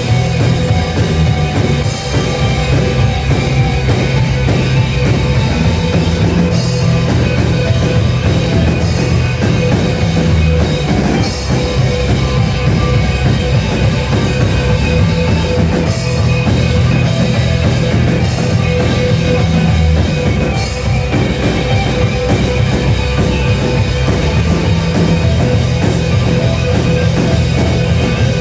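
Rock band playing loud, continuous music with a driving drum kit; no singing is heard.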